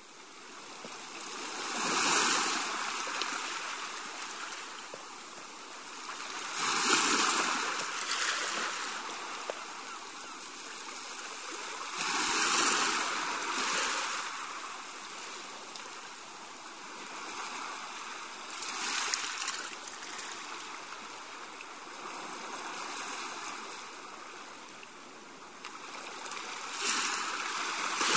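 Sea wash: small waves breaking and washing up a shore, swelling and ebbing about every five seconds over a steady hiss.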